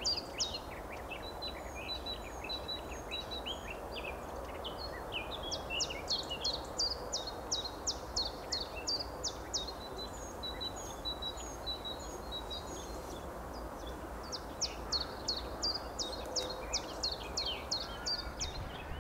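Small songbirds singing: bursts of fast, sharp, high chirps, several a second, with thin high whistled notes in between, over steady low background noise.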